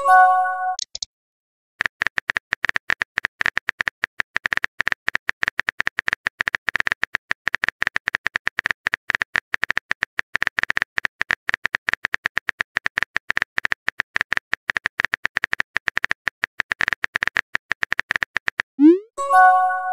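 Rapid keyboard-typing clicks from a texting-app sound effect, many clicks a second, running for about seventeen seconds as a long message is typed. A short chiming message pop opens it, and near the end a rising swoop and another chime sound as a message is sent.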